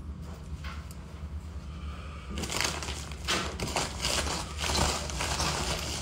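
Plastic mailer bag crinkling and rustling as a hand rummages inside it, starting about two seconds in, over a steady low hum.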